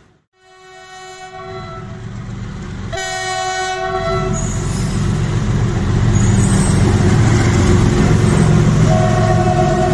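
Locomotive horn sounding two blasts, then the rumble and clatter of a passing train builds and stays loud, with the horn sounding again near the end.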